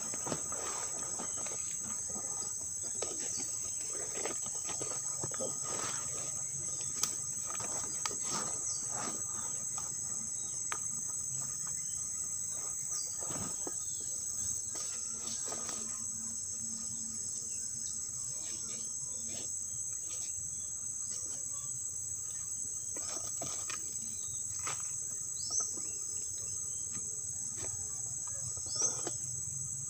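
Forest insects keeping up a steady high-pitched drone, with scattered short knocks and rustles. Two short rising chirps come near the end.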